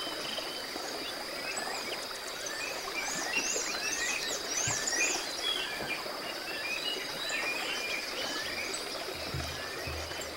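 Nature ambience: many birds chirping in short repeated calls over a steady high-pitched insect trill. Low musical tones come in about a second before the end.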